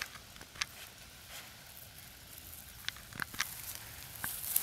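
Dry barley ears and straw crackling and rustling as a hand parts and handles them, with a few sharp snaps, several close together about three seconds in.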